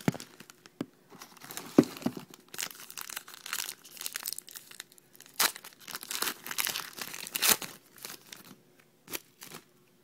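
Plastic wrapper of a trading-card pack crinkling and tearing in the hands, an uneven run of crackles with a few sharper snaps.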